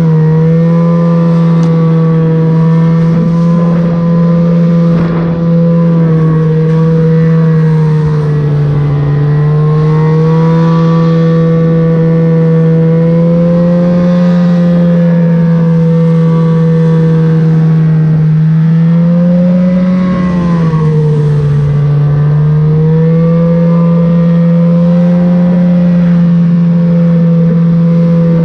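Snowmobile engine running under steady throttle, its pitch easing slightly up and down as it rides. About twenty seconds in, the pitch rises briefly and then drops back.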